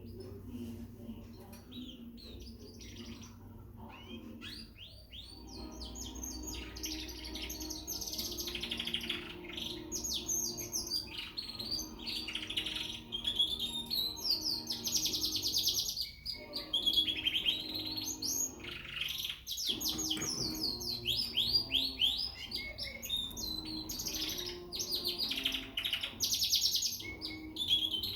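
Young frill canary singing: long runs of fast trills and rolls of rapidly repeated high notes, sparser at first and nearly continuous from about five seconds in.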